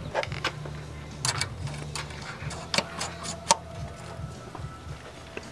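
Scattered metallic clicks and knocks of hand tools and suspension parts as a coilover is fitted into the strut tower, over a steady low hum.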